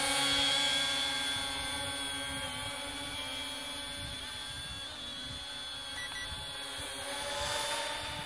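Eachine E58 mini quadcopter's motors and propellers whining steadily in flight while carrying about 36 grams of coins, close to the most it can lift. The whine slowly fades as the drone climbs away.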